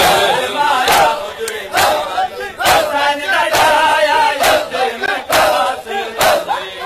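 Large crowd of men chanting a Sindhi noha in unison, with matam: hands striking chests together in a steady beat, a sharp slap a little under once a second.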